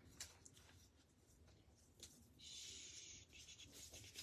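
Faint rustling of folded paper lottery slips being rummaged and picked out by hand, with a longer, louder rustle a little past halfway.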